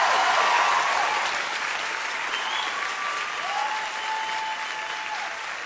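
Large concert audience applauding, with a few cheers rising above the clapping; loudest at the start and slowly dying down.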